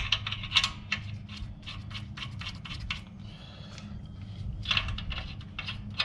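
A quick, uneven run of short metallic clicks and scrapes from hand work on the truck's rear brake backing plate and shoes, easing off for a moment past the middle. A steady low hum runs underneath.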